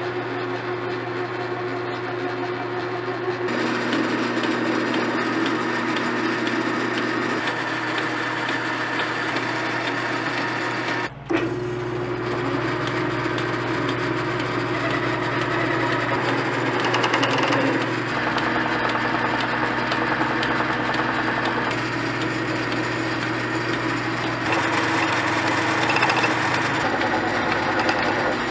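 Metal lathe running steadily with its motor hum while a knurling tool and then a cutting tool work a metal part, with a scraping cutting noise. There is a short break about eleven seconds in.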